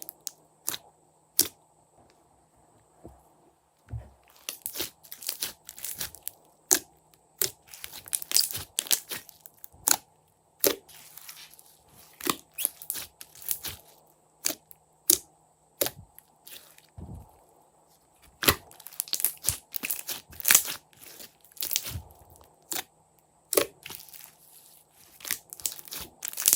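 Slime being handled, squeezed and pressed, giving irregular sharp crackling pops and clicks, sometimes in quick clusters and sometimes with short pauses.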